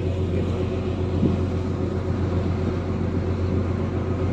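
A large car ferry's engines run with a steady low drone while the ship is under way.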